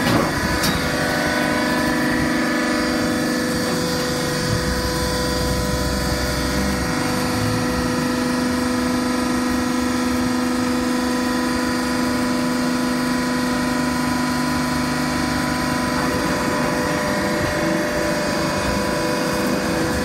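Horizontal baler's hydraulic power unit running: an electric motor and pump giving a steady hum with a few held tones. A deeper rumble joins for a couple of seconds about five seconds in.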